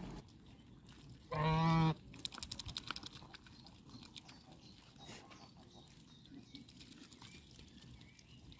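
A goose gives one short, low, steady call about a second and a half in. It is followed by quick, irregular clicking as the geese's bills peck the soaked oat flakes in a plastic tub.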